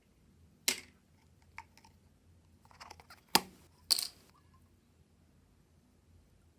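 Putty slime being worked by hand, giving a few sharp pops and clicks, the loudest two about half a second apart past the middle, with a brief crackle just before them.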